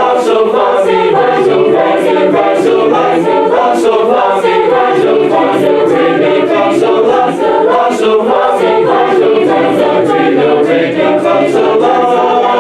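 Four-part a cappella chamber choir (bass, alto, tenor, soprano) singing a minor-key solfège warm-up on syllables like la, ti, do. The notes change quickly in moving harmony, then settle into a held chord near the end.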